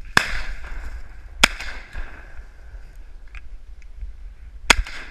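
Three shotgun shots fired at flying ducks, the second about a second after the first and the third about three seconds later, each trailing off in an echo.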